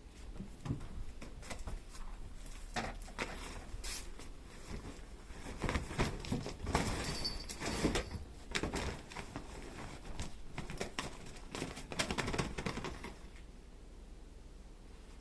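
Kittens scuffling and playing: irregular light taps, scratches and rustles, busiest in the middle and dying down near the end.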